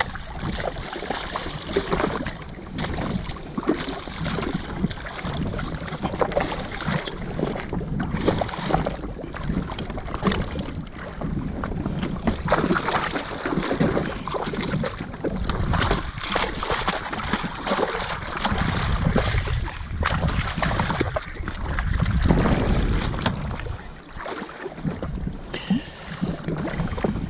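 Wind buffeting the microphone with water splashing and slapping against a jetski's hull, gusting unevenly.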